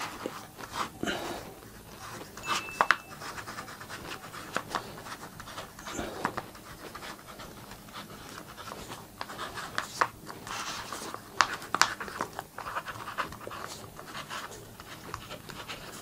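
Xiaomi Mijia rollerball pen writing on a sheet of paper: scratchy strokes that come and go, with a few sharp ticks.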